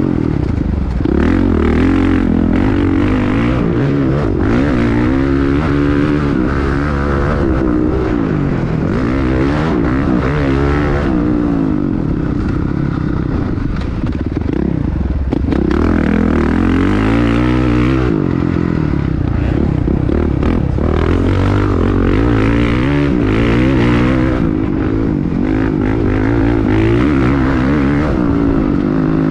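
Motocross dirt bike engine revving hard and backing off again and again as it is ridden, its pitch rising and falling every few seconds.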